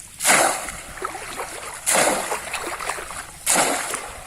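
Three loud water splashes about a second and a half apart, each sudden and then fading: a bamboo polo fish trap being plunged down into shallow pond water.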